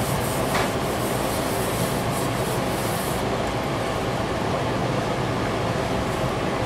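Steady, even rumble of background noise with no distinct events, apart from one faint tick about half a second in.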